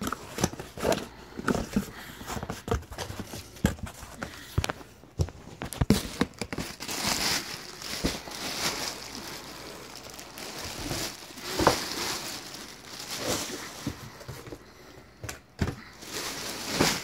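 Cardboard shipping box being opened and handled by hand: irregular knocks and scrapes of the box and its flaps, mixed with the crinkling of the plastic packaging inside.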